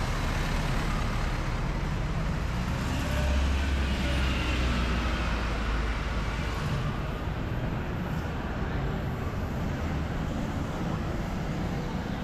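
City road traffic. A motor vehicle's low engine rumble swells about three seconds in and fades a little after six seconds, with a faint whine gliding over it.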